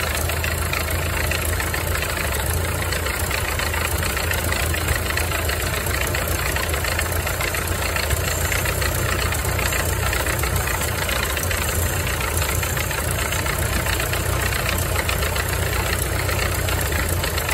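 Ford Model A's four-cylinder flathead engine idling steadily at a low idle, just set down at the Zenith carburetor.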